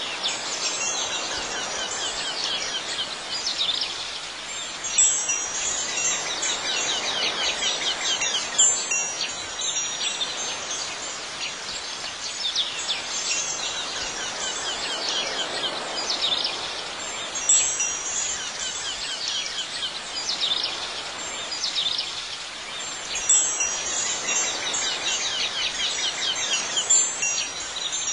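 Wind chimes ringing in clusters every few seconds over a steady outdoor background hiss.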